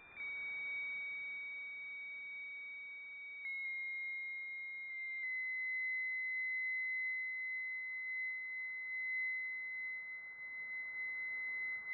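Steady pure whistle-like tone from a software radio's double-sideband demodulator, a received signal heard as a beat note near 2 kHz over faint hiss. It steps down slightly in pitch a few times, near the start and about three and a half and five seconds in, as the tuning is nudged upward.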